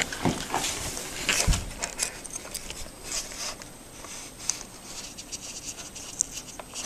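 Small scrapes, clicks and handling rustles of a single-edge razor blade and hands working at the edge of a granite countertop, with a low thump about a second and a half in.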